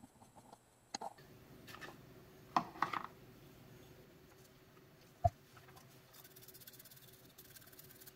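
Faint handling noises of a small circuit board and hand tools on a workbench: a few light clicks and taps, with one sharp tap about five seconds in.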